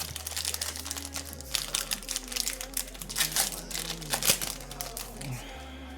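Plastic booster pack wrapper crinkling as it is torn open and handled. It makes a dense run of crackles that stops about five and a half seconds in.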